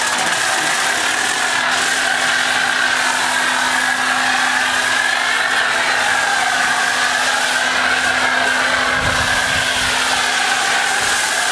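Pressure washer running and spraying through a foam cannon: a steady hiss of spray with a wavering whine and a low hum from the machine.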